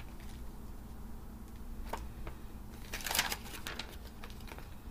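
Magazine pages being handled and turned: a single sharp tap about two seconds in, then a short papery rustle of a page turn around three seconds, over a low steady hum.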